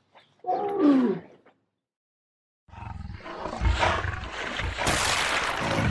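Dromedary camel giving one moaning call, about a second long, that falls in pitch. After a second of quiet comes a rough hissing rumble with low thumps that grows louder.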